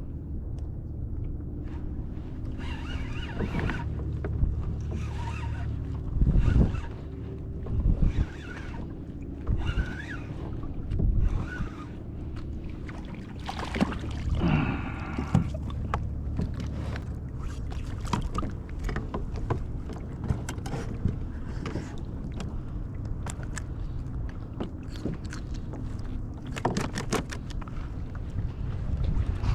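Sounds of a fishing kayak on the water: a steady low rumble of wind and water, broken by a series of short splashes and knocks against the hull, and a quick run of clicks near the end.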